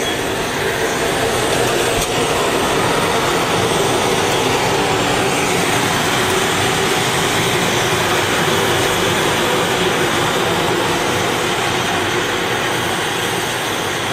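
Fire-suppression device discharging into a burning room: a loud, steady rushing roar as the fire is knocked down.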